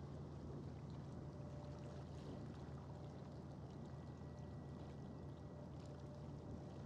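Faint waterfront ambience: a steady low hum under a light, even wash of water-like noise, with no distinct events.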